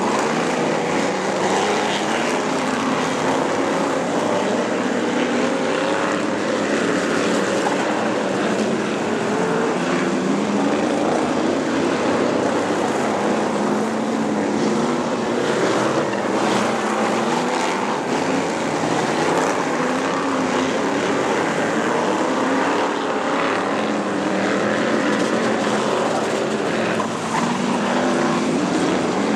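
Several supermodified race cars' engines running hard on a dirt speedway, a dense overlapping drone whose pitch keeps rising and falling as the cars lap.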